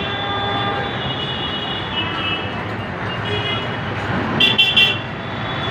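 Street traffic noise with vehicle horns honking on and off; the loudest is a quick series of short honks about four and a half seconds in.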